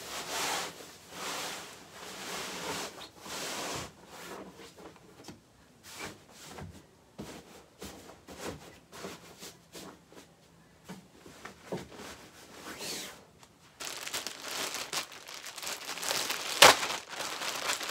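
A clear plastic bag crinkling and rustling as it is handled and opened, densest in the last few seconds, with one sharp crackle near the end. Before that come softer rustling and scattered small handling clicks.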